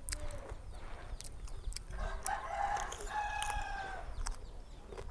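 Crisp crunching of raw green mango being bitten and chewed, heard as scattered sharp clicks. A rooster crows once in the background, starting about two seconds in and lasting about two seconds.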